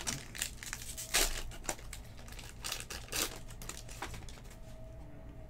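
Foil trading-card pack wrapper crinkling and tearing as it is ripped open and the cards are pulled out, with louder rustles about one and three seconds in, dying down near the end.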